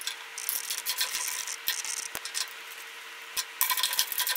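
Ratchet clicking in quick irregular runs, with metal clinks from the wrench, as the long steel bolt through the band saw's riser block is tightened.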